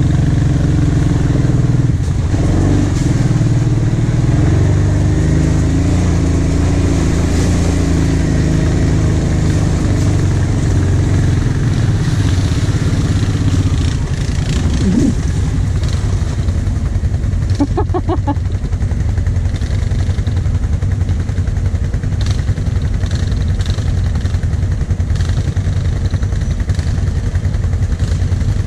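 Kawasaki Brute Force 750 ATV's V-twin engine running steadily at low trail speed, heard close up from the rider's seat. Its note rises briefly about halfway through, then runs a little quieter.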